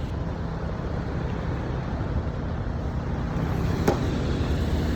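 A heavy engine running steadily at an even pitch, with a single sharp knock about four seconds in.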